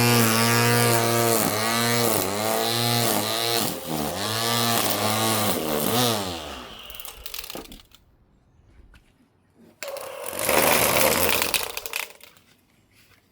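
String trimmer (weed eater) running, its whine dipping in pitch again and again as the line bites into grass along the edges, then released and spinning down about seven seconds in. A loud rustling noise follows briefly near the end.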